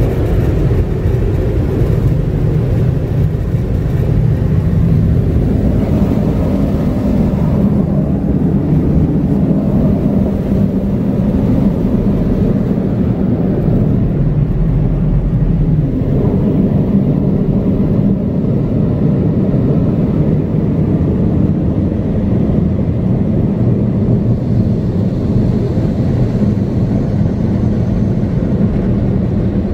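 Belanger air-cannon dryers of an automatic car wash blowing, a loud steady roar heard from inside the car.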